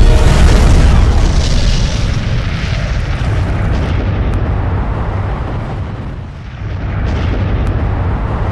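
Loud explosion sound effects: a heavy blast at the start trailing off into a long low rumble, with a second swell about seven seconds in.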